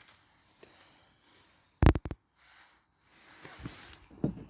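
A sharp double knock about two seconds in, like a part or tool being set down hard, with faint handling noises near the end.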